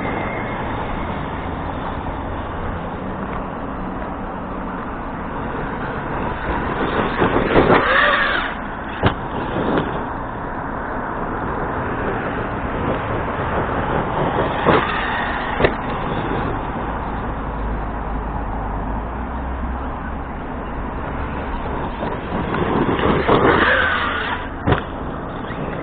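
Arrma Kraton RC truck's brushless motor whining as it is driven hard over rough ground. It revs up and falls away twice, and there are a few sharp knocks.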